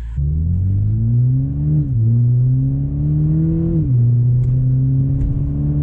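Toyota GR Supra 2.0's turbocharged inline-four, through an aftermarket FI Valvetronic exhaust, accelerating: the engine note climbs and drops sharply with an upshift about two seconds in and again about four seconds in, then climbs slowly in the next gear.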